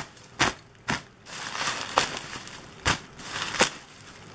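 Packaging being handled during an unboxing: crinkling and rustling with about five sharp crackles spread over a few seconds.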